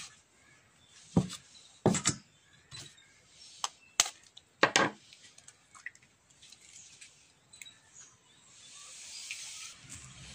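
A hen's egg being knocked against a bowl's rim to crack it: a handful of sharp knocks spread over the first five seconds, then softer clicks as the shell is pulled apart.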